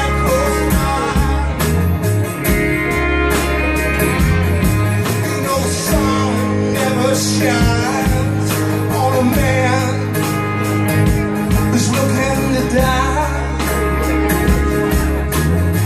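A live band playing a song on electric and acoustic guitars over a steady beat, with a melodic line bending in pitch through the middle.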